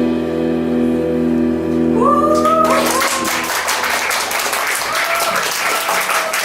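A rock band's final chord, with guitars and keys held and ringing, cuts off about two and a half seconds in, and the audience breaks into applause with a few rising whoops.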